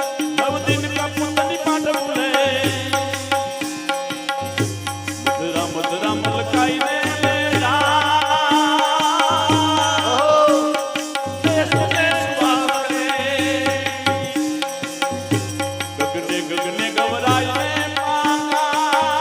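Instrumental interlude of live Indian devotional folk music: a deep bass note pulsing about once a second under a drum beat, a held drone, and a wavering lead melody above.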